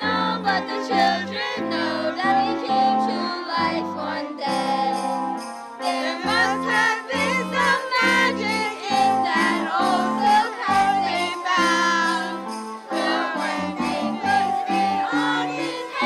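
Girls singing a Christmas song along with recorded backing music that has jingle bells and a steady bass line, played over a PA loudspeaker.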